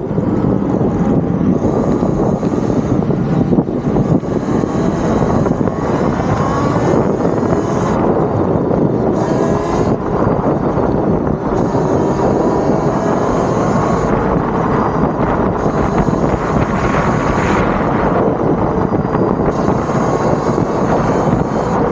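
Wind buffeting the microphone and tyre rumble from a Talaria Sting MX4 electric dirt bike riding on city streets. A faint motor whine rises and falls in pitch as the bike speeds up and slows.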